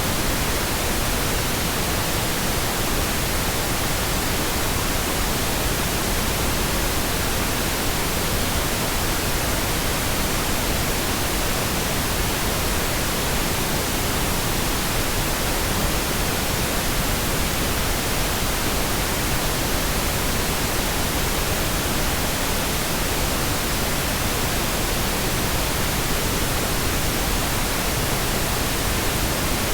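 Pink noise: a steady, even hiss across the whole range of pitch, unchanging throughout.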